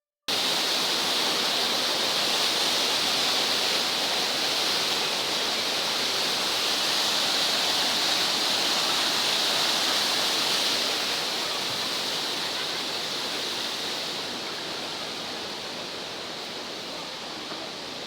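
Steady rushing of water pouring down an artificial waterfall. It cuts in abruptly at the start and grows gradually fainter over the second half.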